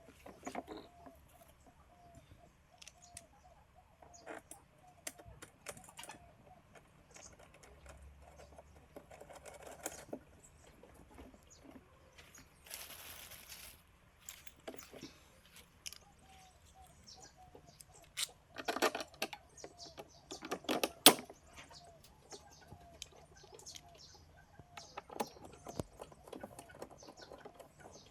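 Scattered clicks and clattering of parts being handled, loudest in a run of knocks about two-thirds of the way through, with a brief rustle in the middle. A bird calls in a quick repeated series in the background.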